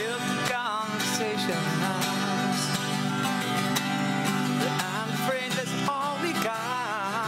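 Twelve-string acoustic guitar strummed steadily in a slow ballad. A man's voice sings long, wavering held notes over it, briefly about half a second in and again from about five seconds on.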